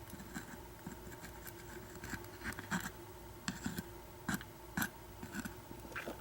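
Faint, irregular little clicks and scrapes of small metal lock pins and tools being handled while a pin-tumbler padlock is taken apart.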